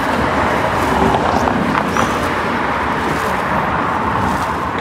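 Road traffic on a bridge: a steady rush of passing vehicles, mostly tyre noise, with no single engine standing out.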